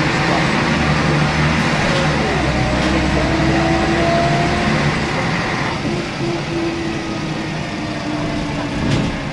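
Scania K113CRB coach's rear-mounted 11-litre straight-six diesel pulling hard under kickdown, heard from inside the saloon, the engine note climbing. About six seconds in the sound becomes quieter and less harsh, with the engine still running.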